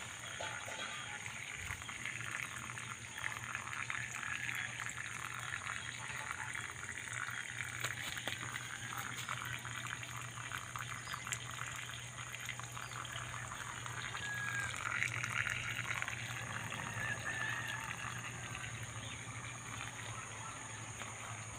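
Water trickling and bubbling through the thin hose of a homemade plastic-bottle siphon pump, a steady stream of small gurgles and drips.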